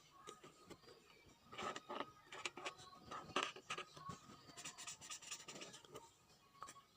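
Faint scratching and rustling of paper and stationery handled during hand-journaling, in short irregular strokes that come thicker after the first second and a half.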